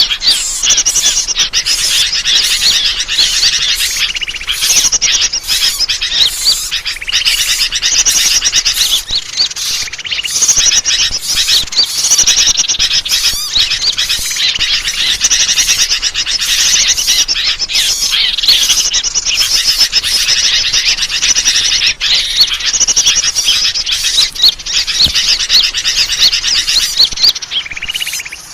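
A dense, unbroken chorus of high-pitched chirps and rapid trills from many small birds. This is a bird-lure recording (suara pikat), played to draw wild birds in.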